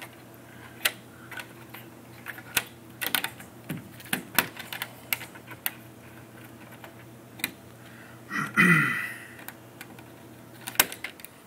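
Irregular sharp clicks and taps of a SOG multi-tool's pliers working at the screw terminals and wires of a wall thermostat's base plate, prying the wires free. A louder rasping sound with a falling pitch comes about eight and a half seconds in.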